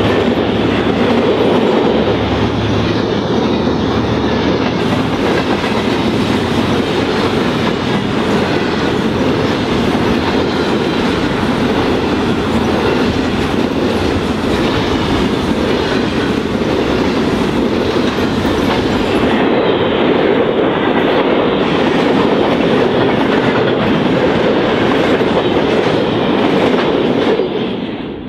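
Container wagons of a long intermodal freight train rolling past: a steady loud rumble with wheels clattering over the rails. It fades away just before the end.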